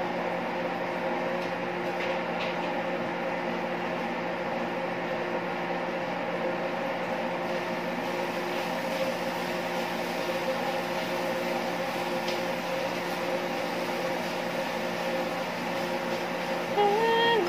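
Steady machine hum of kitchen equipment: a low drone with several fixed tones over it, holding an even level. A brief pitched sound comes in near the end.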